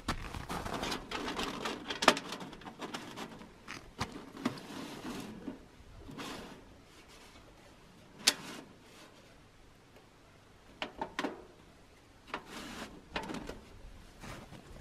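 Boots crunching and stamping on snow in irregular steps, with a few sharp clicks among them.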